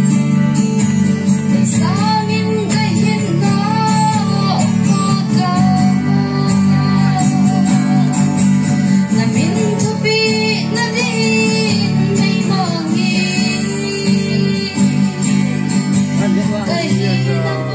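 A woman singing a slow melody into a microphone, accompanied by a strummed acoustic guitar.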